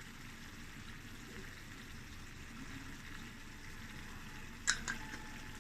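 Prawn curry simmering gently in the pan, a faint steady hiss, with two light clicks near the end.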